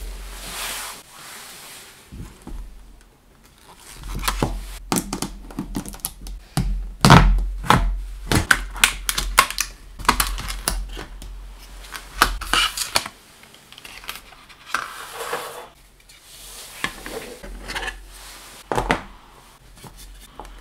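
Stiff clear plastic blister packaging of a new solid-state drive being pried open and pulled apart: a dense run of sharp clicks, snaps and crinkles, loudest in the middle, then fewer, lighter plastic clicks near the end as the drive is handled.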